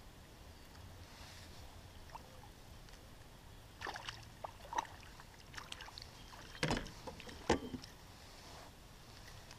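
A hooked fish splashing at the water's surface as it is reeled in to a kayak: a run of short, sharp splashes and knocks starting about four seconds in, the two loudest a little under a second apart in the second half.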